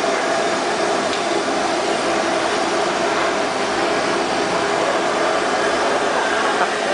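Steady city street noise: traffic with a continuous engine hum, unchanging throughout.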